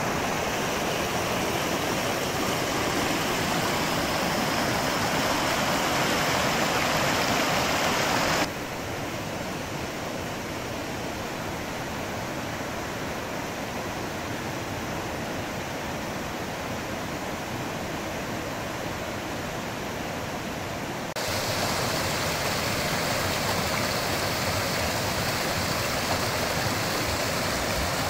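Rushing water of a mountain stream, the speaker thinks swollen by rain: an even rush that drops in level suddenly about eight seconds in and comes back up about 21 seconds in.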